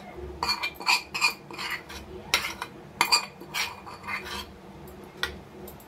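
A metal spoon scraping and clinking against the inside of a stainless steel bowl, knocking leftover spices and oil out into a dish. It comes in a quick run of strokes that thin out to a single knock near the end.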